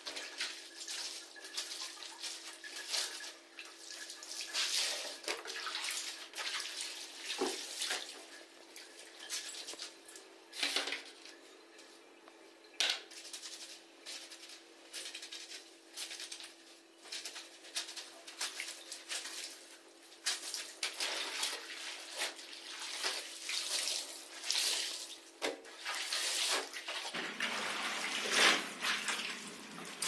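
Dark clothes being rubbed, pressed and lifted by hand in a plastic tub of soapy water, with irregular splashing and the rub of wet fabric.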